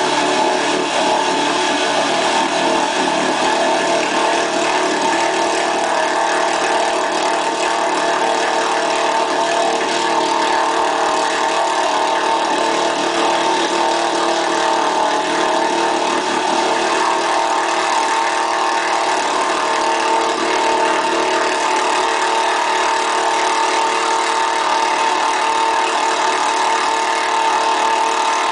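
1970 International Harvester pickup's engine running hard under load at a fairly steady pitch, its buried tyres churning through deep bog mud.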